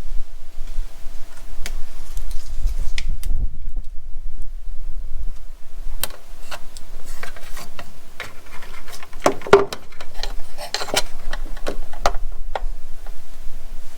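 Scattered light clicks and rattles of small parts and wiring being handled, with a busier run of them a little past the middle, over a low rumble.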